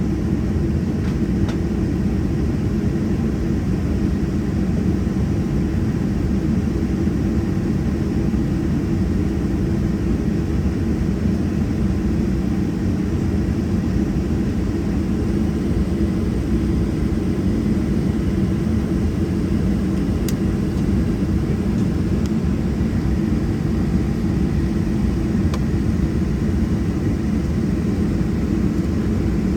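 Steady cabin noise inside a Boeing 737-700 on the ground during pushback: an even low rumble with a hum and air hiss, unchanging in level.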